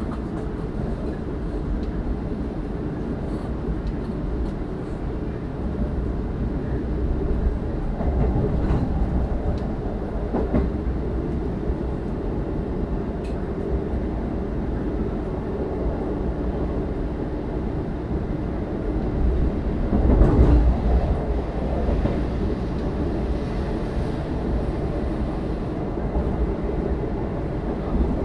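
Passenger train running on the rails: a steady low rumble with a few faint rail clicks, swelling louder for a moment about twenty seconds in.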